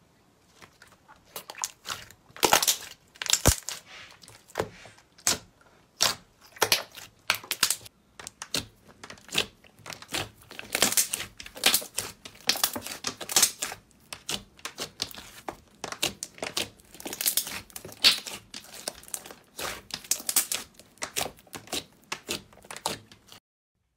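Hands stretching and poking soft slime: an irregular run of sticky crackles and pops. It cuts off suddenly near the end.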